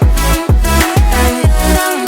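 Background music: an electronic dance track with a steady kick drum beat, about two beats a second, and a bass line.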